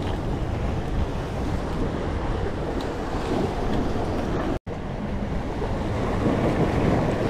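Wind buffeting the microphone over small waves washing against rocks, a steady rushing noise that cuts out for an instant just past halfway.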